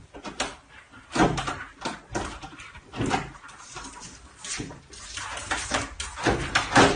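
A cat's claws scrabbling and scraping on a wooden door as it clings and slides down, with bumps against the door. The scraping comes in irregular bursts, loudest about a second in and near the end.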